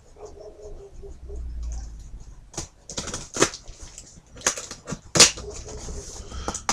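Cardboard box being handled and opened, with a run of irregular sharp scrapes, taps and rustles.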